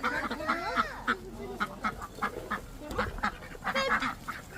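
Ducks quacking in a rapid string of short calls, mixed with the chirping of other birds.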